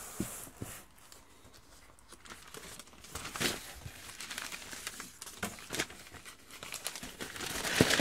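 Sheets of newspaper being crumpled and stuffed into a cardboard shipping box as packing. After a few light knocks, the crinkling picks up about three seconds in and grows louder toward the end.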